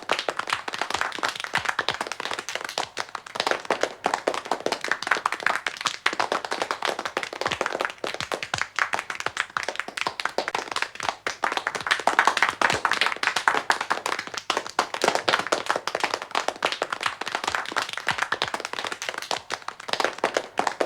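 A small audience applauding: many hands clapping out of step in a dense, continuous patter that swells and eases in waves.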